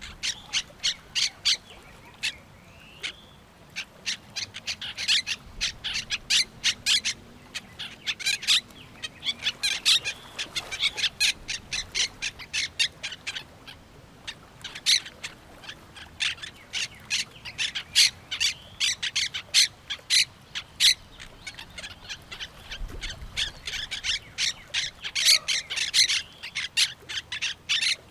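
Birds, parrots among them, calling in a busy, continuous chorus of short harsh squawks and chirps, several a second.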